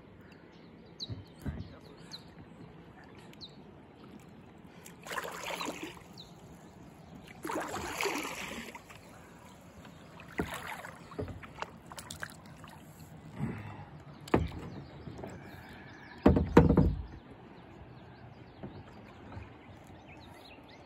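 Kayak paddling on calm water: several paddle strokes dipping and splashing, with a few low thumps. The loudest is a heavy thump about three-quarters of the way through.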